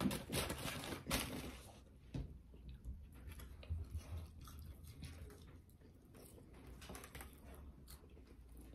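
Close-miked chewing of burgers and fries, with crinkling of a foil wrapper being handled in the first second or so.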